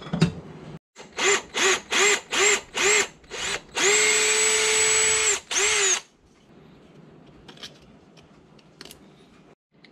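Cordless drill boring a hole through a small wooden handle: a string of short trigger pulses starting about a second in, each spinning up and back down, then a steady run of about a second and a half and one last short burst. After that, only faint handling clicks as a bolt is fitted through the new hole.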